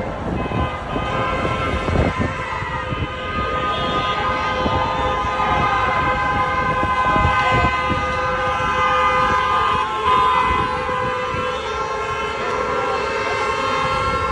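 Several car horns sounding at once in long, overlapping blasts, over a rough low rumble.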